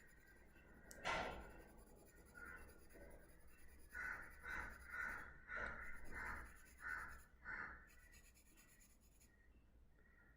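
Pencil scratching on paper in faint shading strokes: one sharper stroke about a second in, then a run of about seven quick strokes, roughly two a second, between about four and eight seconds in.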